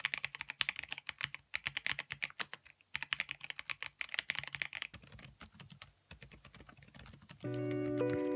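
Fast typing on a MISTEL MD750 Delight mechanical keyboard: rapid runs of keystrokes with short pauses, growing fainter in the second half. Guitar music comes in near the end.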